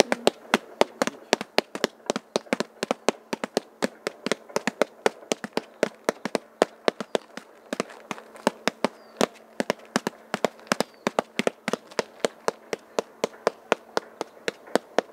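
Cloth ink dabbers tapping rapidly on damp paper pressed over an engraved rock face, inking a Chinese-style rubbing: a steady, slightly uneven patter of sharp taps, about four or five a second.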